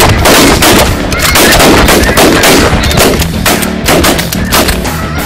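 Loud, heavy rock-style music with a dense, pounding beat over a steady bass line.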